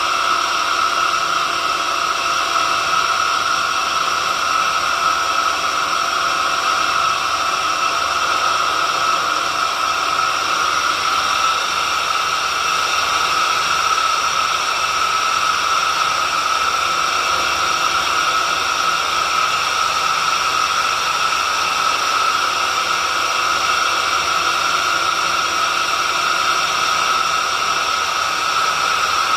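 Homemade horizontal drill running steadily: a continuous machine whine with several steady tones over a strong hiss, unchanging throughout.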